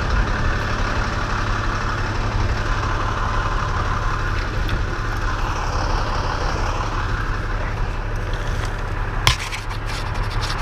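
An engine idling steadily. A sharp click comes about nine seconds in, followed by a few lighter clicks and rattles.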